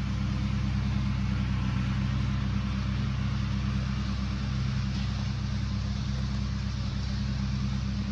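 A steady, unchanging engine hum, like a motor idling, with an even low drone and a broad hiss over it.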